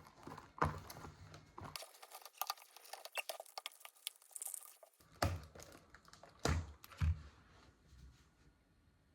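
Close-up handling noises: quick clicks and crinkling, rustling sounds, with three soft thumps in the latter half.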